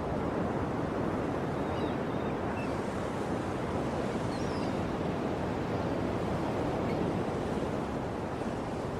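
Ocean surf washing steadily on the shore, a continuous rushing of waves. A few faint high bird chirps come over it.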